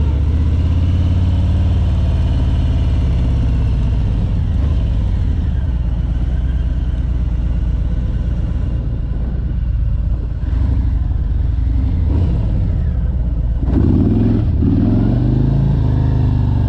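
Harley-Davidson touring motorcycle's V-twin engine pulling away under steady throttle. The engine note dips momentarily as the traction control cuts power while the rear wheel slips on a slick surface.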